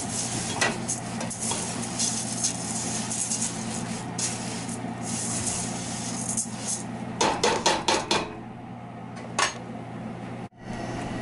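Dry rice grains being stirred and scraped with a silicone spatula in a hot stainless steel pot as they toast in oil, a continuous scratchy rustle with small clicks. About seven seconds in comes a quick run of sharp knocks on the pot, then one more knock a second later, over a steady low hum.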